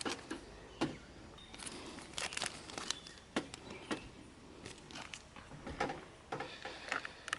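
Faint rustling, crinkling and scattered small clicks of first-aid supplies and a bandage being handled.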